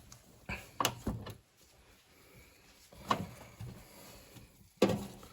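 A few scattered light knocks and clunks of things being handled while a microwave is cleaned with a wet tissue.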